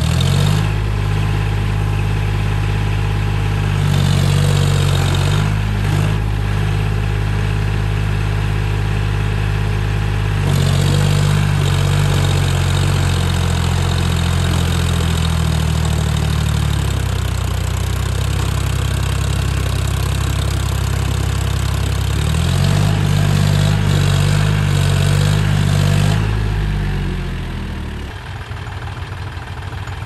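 John Deere 5045D tractor's three-cylinder diesel engine running hard under load as the brick-laden tractor and trolley strain to climb out of deep mud. The revs rise and fall several times and ease off near the end.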